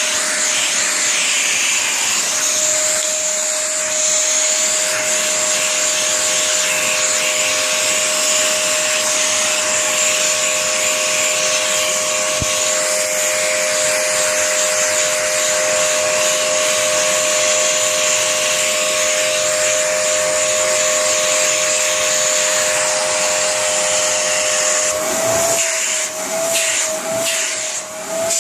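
Vacuum cleaner running steadily with a constant high whine over a rushing hiss. Near the end the whine wavers in pitch and the noise dips and surges unevenly.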